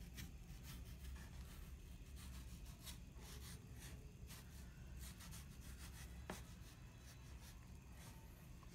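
Faint scraping and light taps of a kitchen knife cutting through a wedge of orange-fleshed Ichiba melon on a wooden cutting board, with one sharper click about six seconds in, over a low steady hum.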